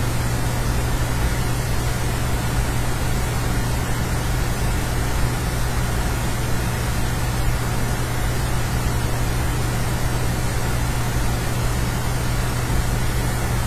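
Steady room tone: a constant low hum under an even hiss, with no events and no change throughout.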